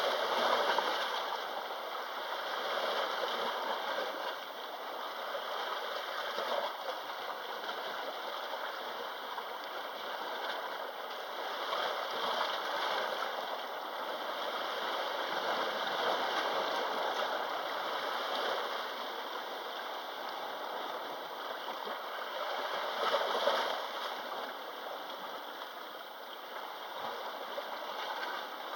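Sea waves washing in and out: a steady rush of surf that swells and falls every few seconds, with the strongest surge about three-quarters of the way in.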